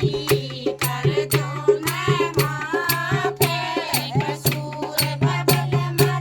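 Haryanvi folk music: evenly spaced sharp percussion strikes, about three a second, over a steady low drone, with a wavering melody line rising and falling in the middle.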